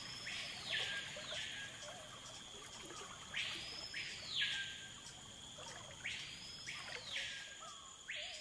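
A bird calling again and again, about every three seconds. Each call sweeps up to a high note, holds it for about a second, then drops back down. A faint, steady high tone runs underneath.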